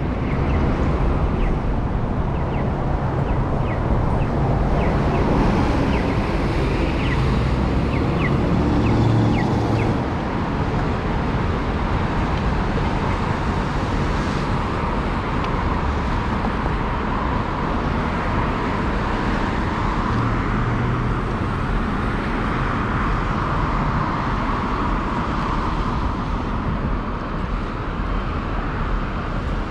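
City street traffic: cars running and passing at an intersection, a steady rumble of road noise, with a run of faint short ticks in the first several seconds.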